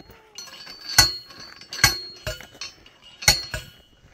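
Steel post driver striking a steel T-post: sharp, ringing metal-on-metal clanks, three loud strikes with a couple of lighter ones between.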